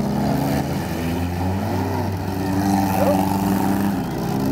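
Several demolition derby cars' engines running and revving together, their pitches rising and falling against each other.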